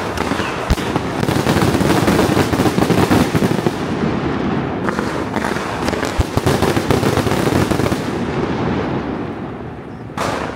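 Fireworks going off in a dense, continuous barrage of rapid cracks and bangs that starts suddenly, thins out near the end, and is followed by one short further burst.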